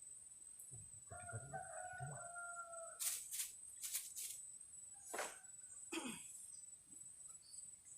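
A rooster crowing once, one long held call of about two seconds, with a steady high insect buzz underneath. A few sharp clicks and two short falling sounds follow.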